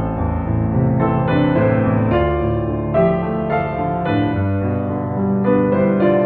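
Background music: a piano ballad, notes struck one after another and left ringing.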